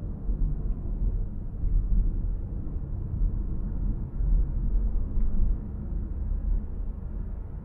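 Low, uneven rumble of a car driving on a city road: tyre and wind noise picked up while the car is moving.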